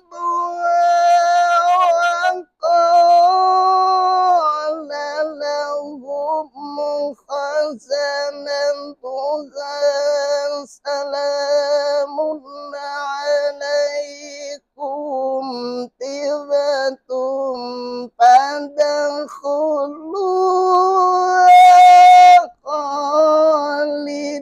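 A man's solo voice chanting a religious recitation in a high, ornamented melodic style: long held notes with wavering runs between them, broken by short pauses for breath, loudest on a held note near the end.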